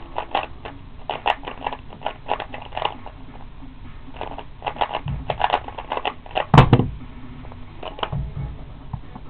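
Plastic clicking and clacking of a Cube4you speedcube, a 3x3 puzzle cube, being turned by hand: a quick, irregular run of clicks. There are a few dull thumps, and a louder knock about two-thirds of the way through.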